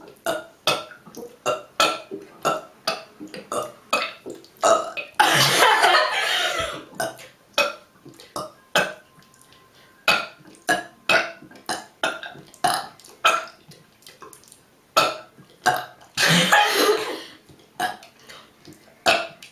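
A girl burping: a quick run of short burps, about two a second, broken by two long, loud burps about five and sixteen seconds in.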